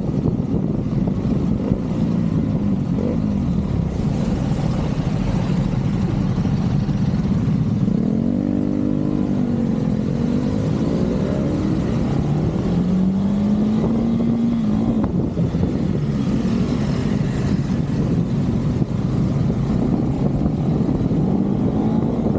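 KTM 390's single-cylinder engine running under way as the motorcycle is ridden, over a steady rush of wind. The engine note climbs and drops several times about eight to twelve seconds in, and rises again a little later, following throttle and gear changes.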